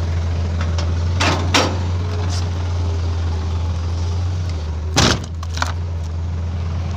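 Heavy diesel truck engine running steadily at a low hum, with a few sharp clunks and rattles, the loudest about five seconds in.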